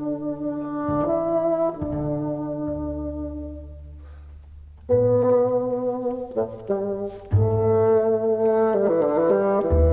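Tango quartet of bassoon, piano, double bass and drums playing, with the bassoon in long held notes over the bass. The music dies down to a soft, low held bass note in the middle, then the full group comes back in loudly about five seconds in.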